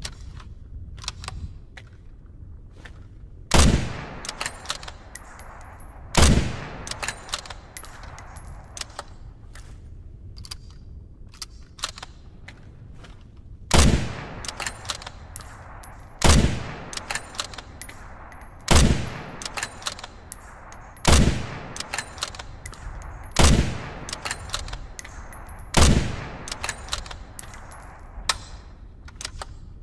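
Winchester Model 70 bolt-action rifle firing eight shots. The shots come about two and a half seconds apart, with a longer pause after the second, and each shot leaves a short fading tail. Lighter clicks fall between the shots.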